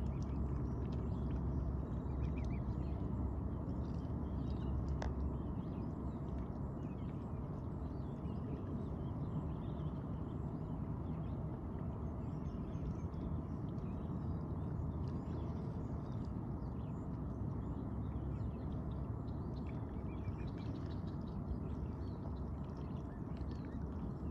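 Mute swans and their cygnets feeding at the water surface, with soft scattered clicks and small splashes as their bills dabble in the water, over a steady low background rumble.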